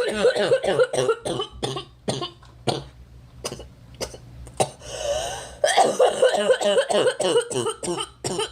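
A girl coughing hard in two rapid, hacking fits, with single coughs between and after them. About five seconds in, the coughing breaks for a long, noisy breath in.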